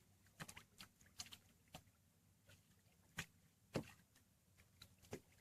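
Near silence broken by a few faint, scattered clicks and knocks, two of them sharper about three and four seconds in.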